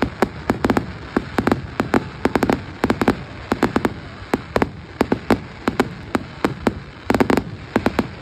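Fireworks display going off in a rapid barrage: sharp bangs and cracks come in clusters, several a second, without a break.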